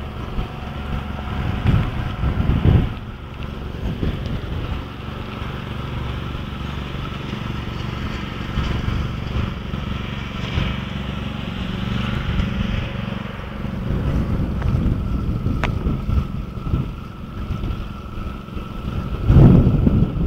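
Wind buffeting the microphone of a camera carried on a moving bicycle: a steady low rumble, with stronger gusts about two seconds in and near the end.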